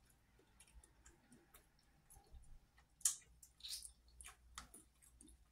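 Quiet eating sounds: a few faint, scattered clicks and small mouth smacks as a fork is lifted and food is chewed, the clearest about three seconds in.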